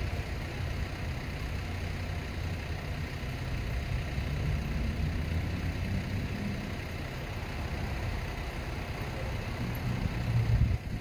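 Steady low rumble of urban outdoor background noise, swelling to its loudest just before the end.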